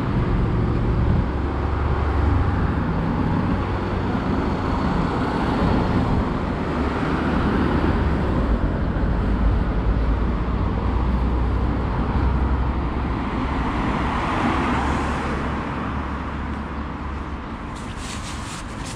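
Road traffic: motor vehicles running and passing close by, a steady low rumble that eases off near the end, with a few short clicks just before it ends.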